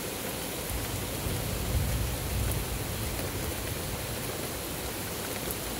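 Steady rain falling on a wet concrete path, lawn and shrubbery: an even hiss, with a low rumble swelling and fading about one to three seconds in.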